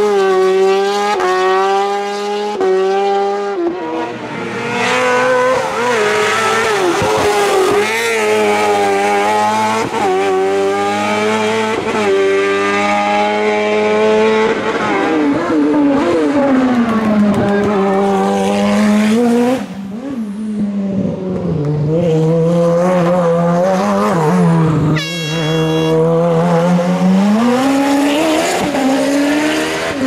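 Race car engine at high revs on a hill climb, rising in quick steps through gear changes, falling away as it lifts off, then pulling up again several times.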